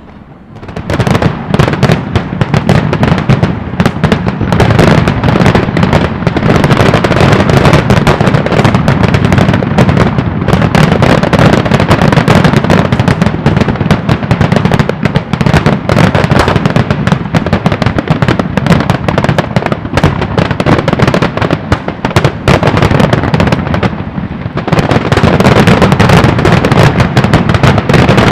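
Fireworks grand finale: a loud barrage of aerial shells bursting in rapid, overlapping succession. It starts about a second in, eases briefly near the end, then builds again.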